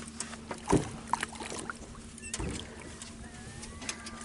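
Hooked bass splashing at the surface beside a boat as it is reeled in and landed. There are two louder thumps, one under a second in and one about two and a half seconds in, over a steady low hum.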